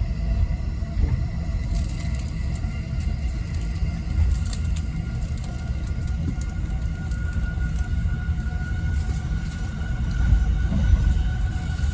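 Running noise of an E217-series commuter train heard inside the upper deck of a double-deck Green car: a steady low rumble of wheels on rail, with a thin whine that climbs slightly in pitch through the middle.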